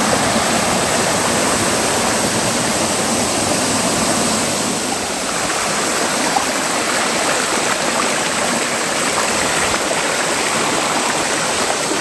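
Small rocky forest stream cascading and running over stones: a steady rush of water.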